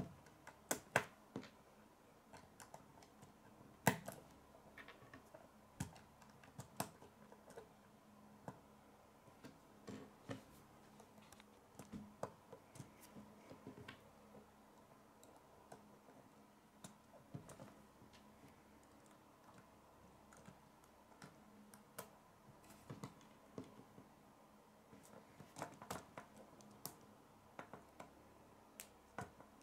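Plastic K'nex construction pieces clicking and tapping as they are handled and snapped together: faint, irregular clicks, a few of them sharper.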